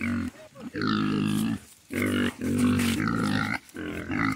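Piglets grunting: a run of about five drawn-out, low calls, the longest about a second each, with short pauses between.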